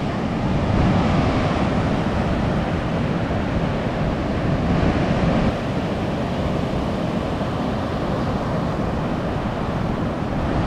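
Surf breaking on a sandy beach, a steady wash of waves, with wind rumbling on the microphone. The sound drops a little in level about halfway through.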